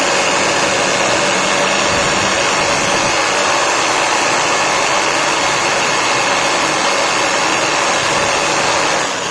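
Electric drill running steadily at high speed, spinning a 220 V sewing-machine universal motor through its chuck to drive it as a generator; a dense, even whirring that starts to wind down at the very end.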